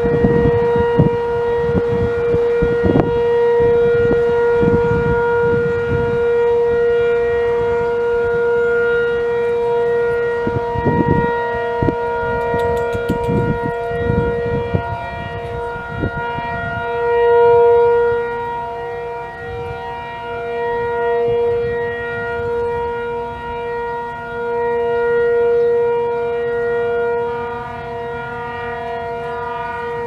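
Sentry 10V outdoor warning siren sounding a steady single tone during a tornado siren test, its loudness swelling and fading every few seconds. Wind rumbles on the microphone, mostly in the first half.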